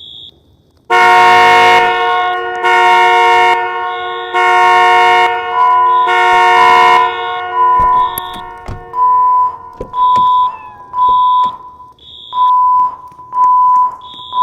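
Building fire alarm signal: a loud, harsh horn sounds in blasts about a second long, starting about a second in. At about ten seconds it gives way to rhythmic beeping, roughly one beep a second, alternating between two pitches.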